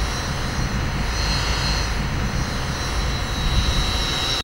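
Quadcopter drone's propellers whining steadily with a high tone, over a low rumble. The sound cuts off suddenly at the end.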